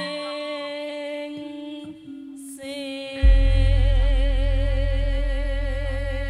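Closing of a live Javanese langgam song. A voice holds the last note with a wide vibrato, and about three seconds in a deep gong stroke comes in suddenly and rings on, slowly fading.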